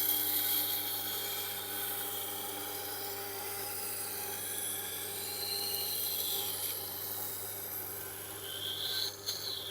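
Steel knife blade grinding against the Tormek T8's SG-250 grindstone, reshaping the blade: a steady hissing scrape over the machine's low, even motor hum.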